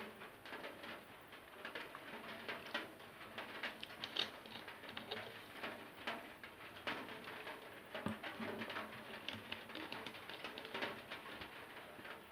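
Close-up eating sounds: irregular wet clicks and smacks of chewing and mouth sounds while eating rice.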